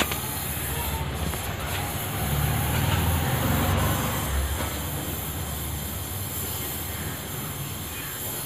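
Butane-and-oxygen gas welding torch flame hissing steadily while it heats the copper return-bend joints of an AC condenser coil for brazing, growing louder for a couple of seconds about two seconds in.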